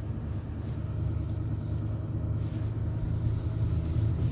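Steady low rumble of a vehicle's engine and tyres while driving along.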